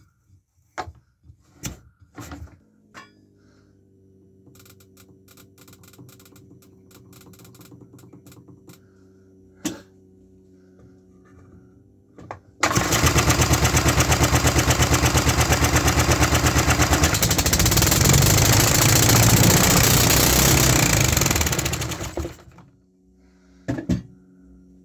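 Homemade 3D-printed single-cylinder fuel-injected petrol engine suddenly firing about halfway through and running loud at high revs, a rapid even pulsing, for about nine seconds. It is then stopped with a kill switch and dies away. Before it starts there are only faint clicks and a low steady hum.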